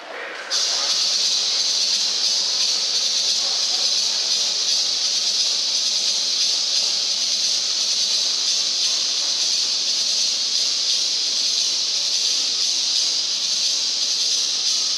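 Loud, steady electronic hiss from the gym's public-address sound system, cutting in suddenly about half a second in.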